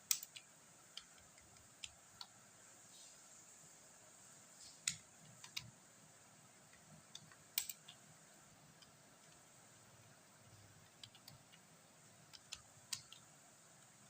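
Computer keyboard keys being pressed: sparse, irregular clicks with pauses between them, a few of them louder.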